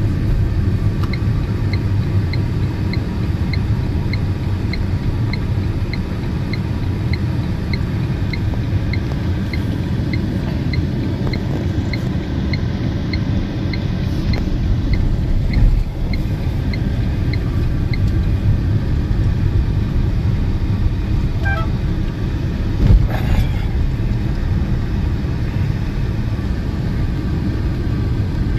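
Steady low road and tyre rumble inside an electric car's cabin while driving. A turn-signal indicator ticks about twice a second and stops after about 18 seconds, with a thump about halfway through and a brief louder sound a few seconds before the end.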